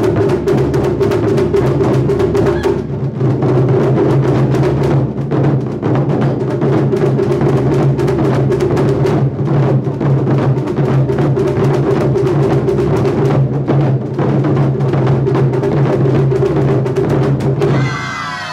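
Ensemble of barrel-shaped nagado-daiko taiko drums beaten hard and fast with wooden bachi sticks, a dense, driving stream of strokes with a deep, steady drum tone. The drumming stops just before the end, and the players give a shout.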